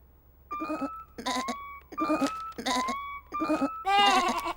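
Cartoon lamb bleating in a string of about six short bleats, the last one the loudest.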